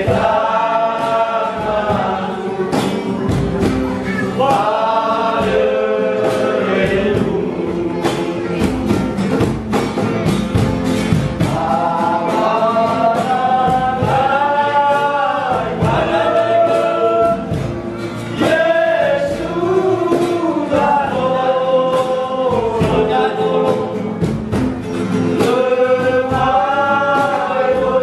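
Men's vocal group singing a Nias-language gospel hymn in several-part harmony, to strummed acoustic guitar.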